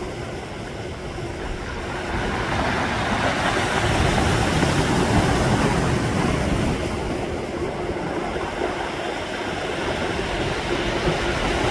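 Sea waves rushing onto the shore in a steady wash, swelling about four seconds in, easing a little around eight seconds and building again near the end.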